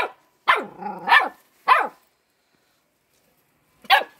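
Dog barking: a quick string of four sharp barks, a pause of about two seconds, then another bark near the end.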